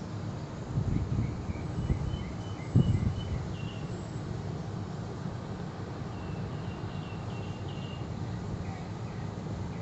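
Outdoor condenser unit of a ductless mini-split air conditioner running with a steady low hum. Two series of short high bird chirps sound over it, and a few thumps come in the first three seconds, the sharpest about three seconds in.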